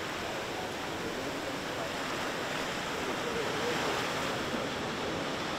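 Small waves washing steadily onto a rocky shore, a continuous even rush of surf.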